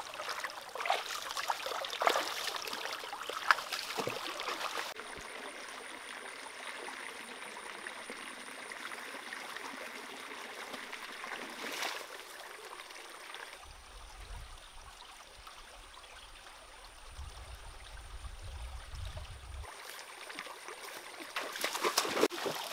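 Shallow stream trickling over rocks, with hands splashing in the water in the first few seconds and again near the end.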